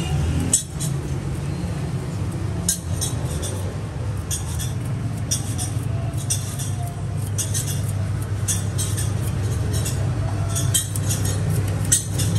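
A knife scraping the rind off a sugarcane stalk in quick, sharp strokes that come in short runs every second or so, over a steady low hum.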